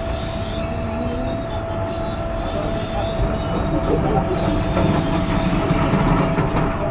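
A steady rumbling background noise with a constant hum running through it, growing a little louder about halfway through.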